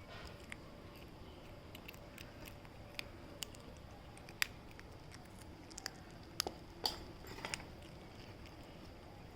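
Cat chewing raw fish, irregular wet crunches and clicks as it bites through flesh and bone, the loudest crunches in a cluster a little past the middle.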